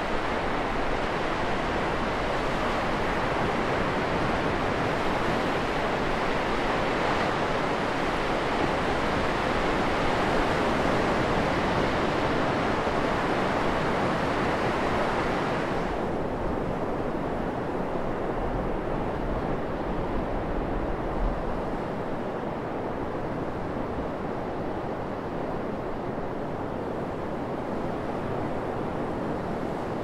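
Ocean surf breaking and washing up a sandy beach, a steady rushing hiss. About halfway through it changes suddenly to a duller, lower wash.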